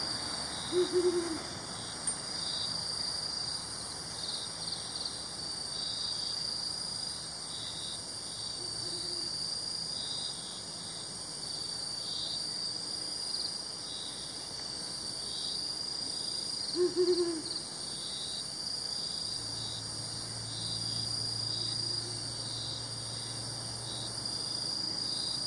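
Brown wood owl hooting: a deep double hoot about a second in and again about 17 seconds in, with fainter hoots between. A steady, high-pitched chorus of crickets and other insects runs underneath.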